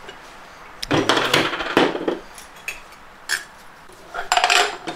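Metal clinks and knocks as a spring compressor tool and a clutch piston return-spring assembly are lifted off an automatic transmission clutch drum. The knocks come in a few scattered groups, the last near the end with a short metallic ring.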